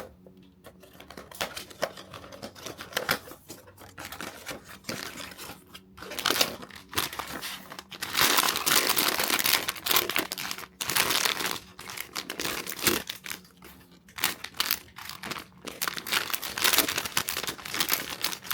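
Packaging being opened by hand: irregular crinkling and tearing of paper or plastic wrapping, with small knocks, busiest and loudest about halfway through.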